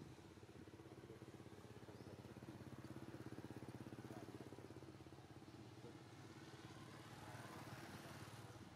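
A small engine running steadily, faint, with a low, even, fast throb.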